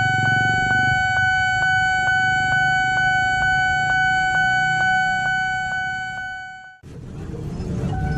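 Railway level-crossing warning bell ringing rapidly from a pole-mounted loudspeaker, about five strikes a second, over motorbikes and traffic. It fades out about seven seconds in, and another crossing's bell starts over street traffic just before the end.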